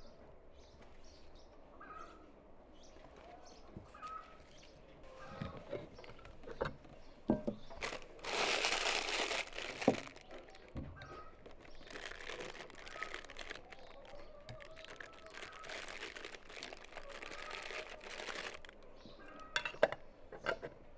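A plastic bag crinkling and rustling in the hands, loudest for about two seconds some eight seconds in, with a few sharp clinks of a metal spoon and a metal lid on a glass honey jar. Birds chirp faintly in the first few seconds.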